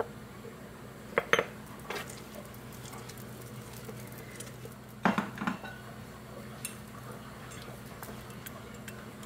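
Seitan dough being kneaded by hand on a wooden cutting board, with a small metal cup handled on the board: a few short knocks and clinks about a second in and again about five seconds in, over a faint steady hum.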